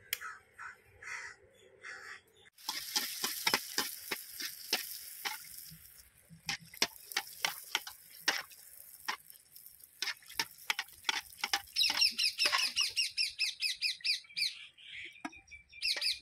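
Pooris deep-frying in hot oil in a kadai: a steady sizzle full of crackling pops, with oil being ladled over a puffing poori. A rapid chirping call runs over the sizzle near the end.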